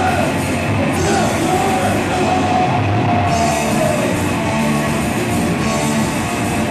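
A rock band playing live and loud: electric guitar, bass and drums, with a sung vocal line over the first four seconds or so.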